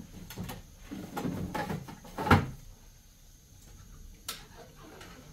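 A series of knocks and clunks, the loudest a little over two seconds in, followed by a single sharp click about four seconds in.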